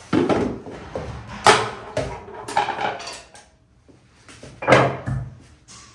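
Metal kitchen utensils and pots clanking and clattering as they are picked up from a dish rack and set down, a series of separate knocks with the loudest about a second and a half in and near the end.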